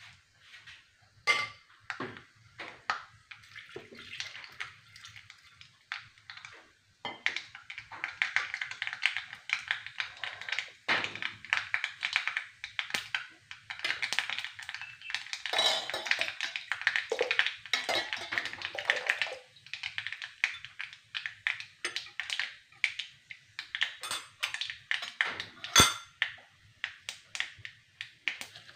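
Mustard seeds spluttering in hot coconut oil in an aluminium kadai, a tempering. Scattered pops at first, then a dense crackle from about seven seconds in that thins out again, with one sharp louder click near the end.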